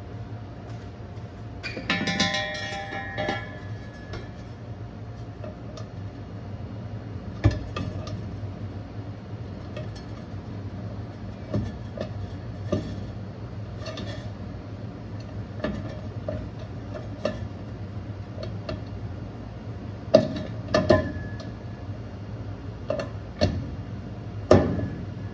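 Scattered metal clanks, knocks and clinks as the steel driveshaft and the loop ring are handled under the car, with one ringing metallic clink about two seconds in and a few sharper knocks near the end, over a steady low hum.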